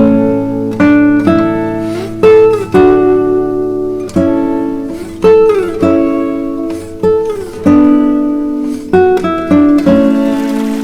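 Acoustic guitar music: plucked notes and chords that ring out and fade, with a few notes sliding down in pitch. A soft hiss of running water comes in near the end as the guitar dies away.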